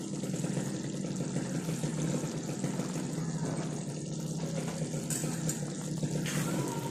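Quail gravy bubbling at a steady simmer in a nonstick pan over a gas flame, ready to come off the heat.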